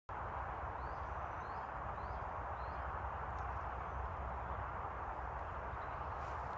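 Steady outdoor hiss with a low rumble, and four short, high, rising chirps about two-thirds of a second apart in the first three seconds.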